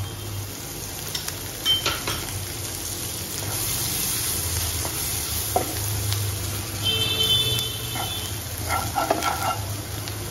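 Sweet corn, onion and flour frying in butter in a non-stick pan, sizzling steadily, with a wooden spatula scraping and tapping against the pan as it is stirred; the flour is being lightly roasted in the butter.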